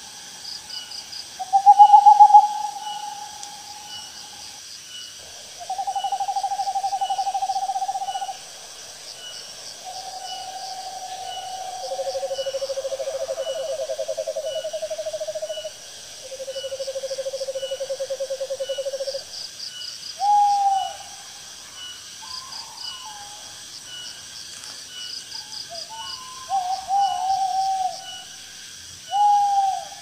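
Owls calling: a run of long, even hoots of two to three seconds each, with two calls overlapping at different pitches around the middle. Near the end come shorter calls that drop in pitch. Insects chirp steadily behind them.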